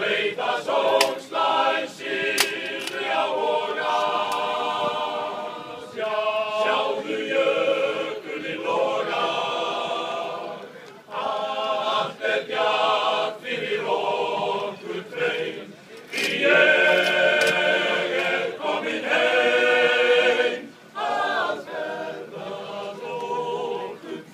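Male-voice choir singing a cappella, in phrases with short breaks between them.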